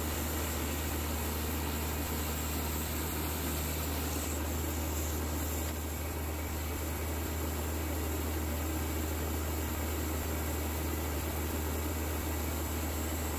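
Baker bandsaw sawmill running steadily, a constant low engine hum under an even hiss, its band blade sawing a Douglas fir log.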